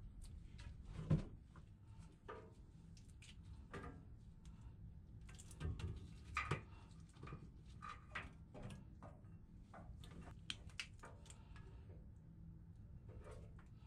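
A red PowerTwist link V-belt being handled and worked onto a blower fan pulley by gloved hands: irregular clicks and light knocks of the belt links against the pulley. A sharper knock comes about a second in and another about six and a half seconds in.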